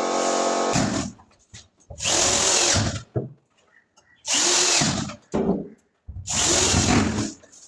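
Power drill driving screws into wood, three short runs of about a second each, the motor speeding up and winding down each time, as a wardrobe door is screwed on at its 3D concealed hinges.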